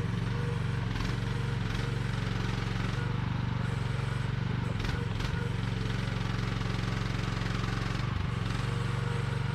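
Engine of a 1-ton mini excavator running steadily under work, with a few short knocks.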